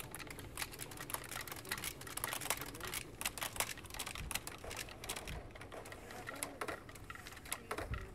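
Experimental electronic music: a dense, irregular stream of clicks and short clattering noises over a low rumble.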